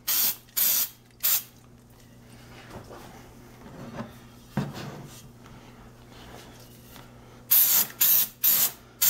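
Aerosol brake cleaner sprayed in short hissing bursts onto a new brake rotor to wash off its anti-rust oil: three quick bursts at the start, a quieter stretch with a light knock in the middle, then about six rapid bursts near the end.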